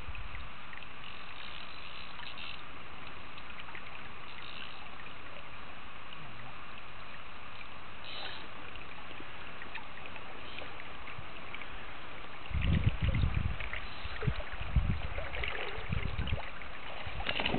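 Steady rush of river current flowing over a shallow pool. Several seconds before the end, bursts of low rumbling noise come and go on the microphone.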